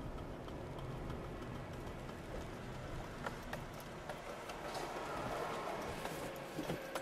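Car driving slowly, its engine and tyre noise heard from inside the cabin, with a few light clicks.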